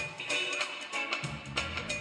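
Instrumental reggae dub music, with drum hits at an even beat over a low bass line.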